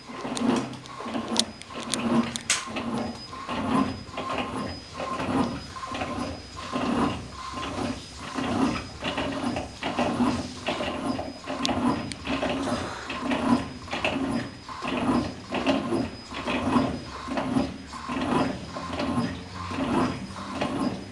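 Electrolux LTA15 Acquajet top-load washing machine running with a load of water, its motor and drive making a rhythmic mechanical churning, a bit more than one stroke a second.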